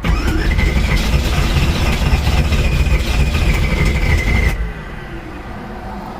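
Starter motor cranking the 1979 MG's engine for about four and a half seconds, its whine rising and then holding before it cuts off, followed by a quieter falling tone as it stops. The owner suspects a bad starter.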